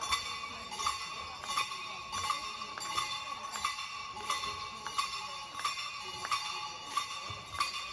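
Regular rhythmic beating, about three strikes every two seconds, with a steady high ringing tone underneath.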